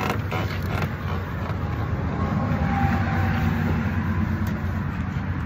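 Heavy diesel truck engine running at idle, a steady low hum; a broader rushing noise swells in the middle and eases off.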